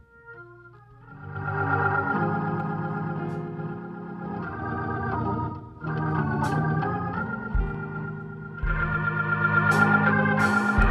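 Organ playing sustained chords, starting softly and swelling about a second in, easing briefly near the middle and growing louder again near the end.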